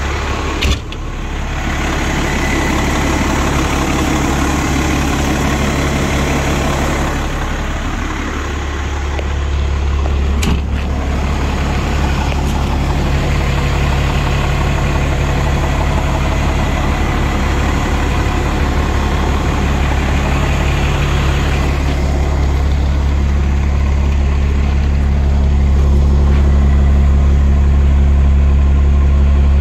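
A fire engine's Cummins diesel engine idling steadily, a little louder near the end. Two short sharp knocks, one about a second in and one about ten seconds in.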